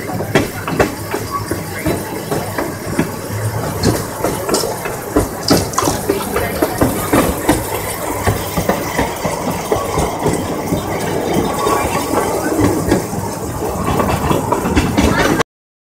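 Narrow gauge steam locomotive running, heard from aboard the train: a loose, continuous rhythm of exhaust chuffs with hiss and rattle. The sound cuts off suddenly near the end.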